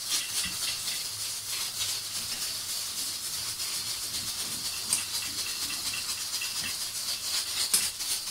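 Gas stove burner flame hissing steadily, with a few light clicks of metal tongs.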